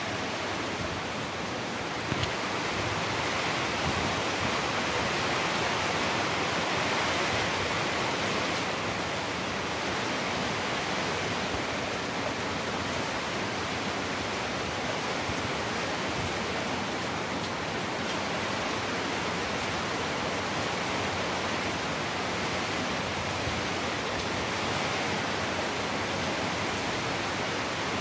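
Heavy typhoon rain falling on corrugated metal roofs, a dense steady hiss that swells a little a few seconds in and again near the end.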